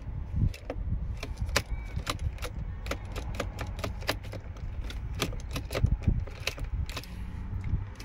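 Scattered sharp clicks and taps from the key fob being handled and pushed into the Audi Q7's ignition slot, over a low rumble of wind on the microphone. No starter, chime or engine follows: the car has no ignition.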